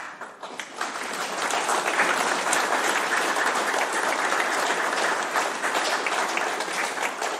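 A roomful of people applauding: many hands clapping together, building up over the first second or two, holding steady, then dying away near the end.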